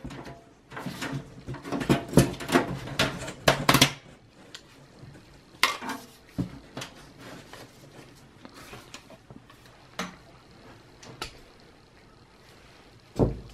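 Front mesh grill of a PC tower case being prised off, its clips and the metal chassis clicking and rattling in a dense run for about the first four seconds. After that come scattered single clicks and knocks, with a heavier thump near the end.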